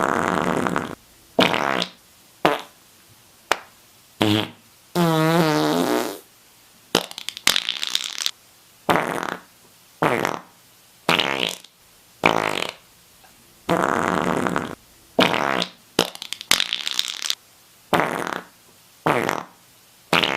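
A string of about eighteen fart sounds, roughly one a second, short and long by turns with brief silences between. One, about five seconds in, is a longer, wavering, pitched fart that drops in pitch.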